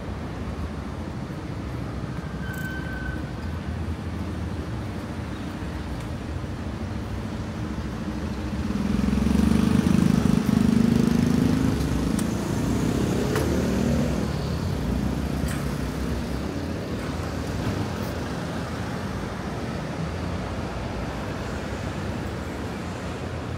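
City street traffic: a steady hum of passing cars, with one engine passing close and louder about nine to twelve seconds in.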